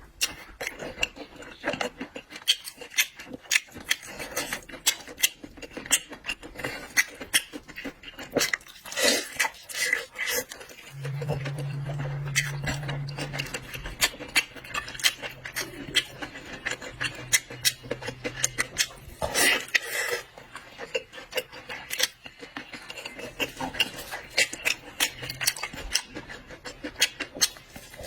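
Close-miked eating of seafood: dense, irregular wet clicks and crackles of chewing and handling food, with clinks of cutlery and dishes. A steady low hum comes in about a third of the way through and fades out before the end.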